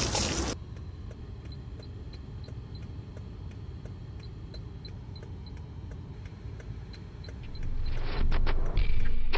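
A can of silly string hissing as it sprays, cut off about half a second in. After that, a car cabin with a steady low engine rumble and a regular light ticking about three times a second, and louder noise from near the end.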